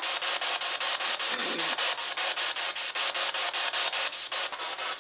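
SB7 spirit box sweeping through radio stations: static hiss chopped in a rapid, even rhythm, with a brief snatch of voice about a second and a half in.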